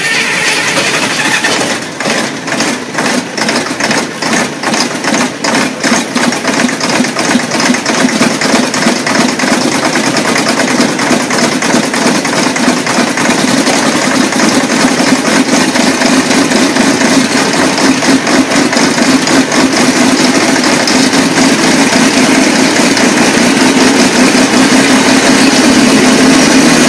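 Engine running just after a cold start, firing in uneven, separate beats for the first several seconds, then settling into a steadier, faster run.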